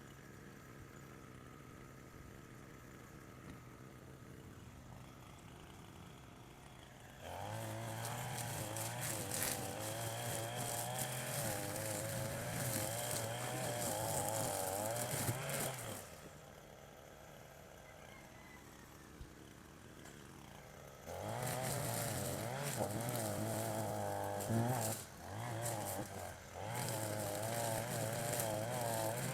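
Small two-stroke engine of a handheld power tool idling, then revved hard twice for several seconds at a time, its pitch wavering under load, dropping back to idle in between.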